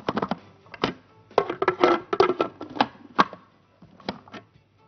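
Plastic lid and bowl of a food processor being fitted and twisted into place, a run of irregular clicks and knocks. The parts must lock together correctly for the safety interlock to let the motor run.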